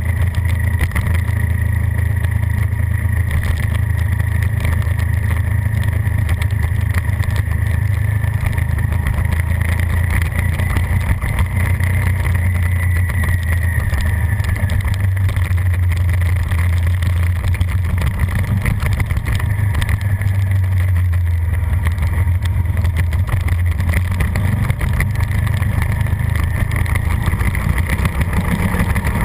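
Suzuki SV650's V-twin engine running hard at race speed, its note fairly steady throughout, under heavy wind rush on the bike-mounted camera's microphone.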